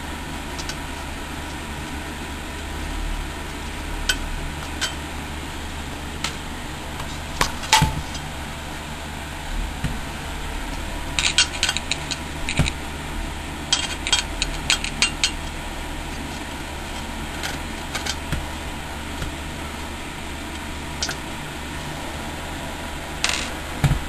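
Scattered sharp metallic clicks and clinks of screws being worked out of a PC's steel hard-drive cage, with a cluster of them about halfway through, over a steady low hum.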